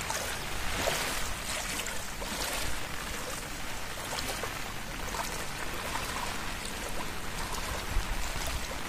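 Rain falling on standing floodwater: a steady hissing patter that swells a little every second or two.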